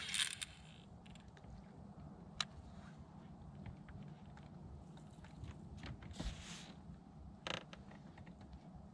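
Fishing rod cast with a short swish at the start, then the baitcasting reel being cranked to retrieve the lure, with faint mechanical creaking and ticking, a sharp click a couple of seconds in and a few brief swishes later on. A steady low hum runs underneath.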